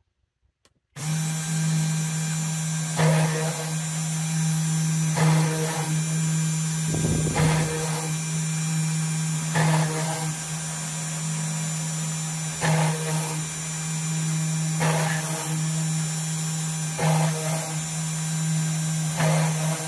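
3018 desktop CNC machine's spindle starting up about a second in and running steadily, with the drill bit plunging into a copper-clad PCB blank about every two seconds, each hole a short burst of cutting noise over the spindle hum.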